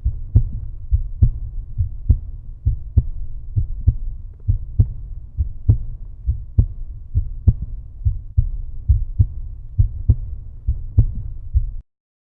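Background music with a steady, bass-heavy beat that stops abruptly near the end.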